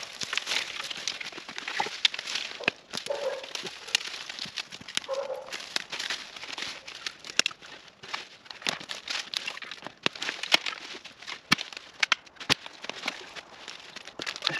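Dry leaves and twigs crackling and rustling as dead branches and brush are dragged and tossed across a leaf-covered forest floor, mixed with footsteps in the leaves. Several sharp snaps of sticks come in the second half.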